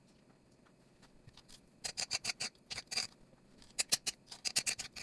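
Kitchen knife chopping a peeled avocado into cubes, its blade tapping on the cutting board. The taps come in two quick runs of sharp clicks, the first starting about two seconds in.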